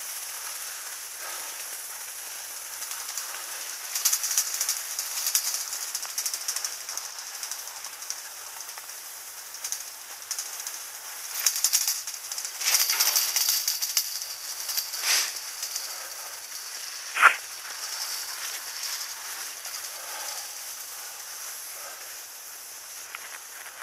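Skis sliding uphill in the packed track of a button drag lift: a steady hiss of snow under the skis with rougher scraping and rattling surges now and then. One brief sharp click or squeak stands out about two-thirds of the way through.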